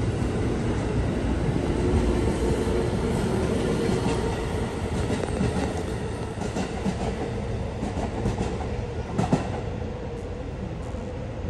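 A JR West 223-series electric train runs past at speed with a steady rumble, its wheels clattering over the rail joints. The sound eases off from about halfway as the train pulls away, with a sharp click near the end.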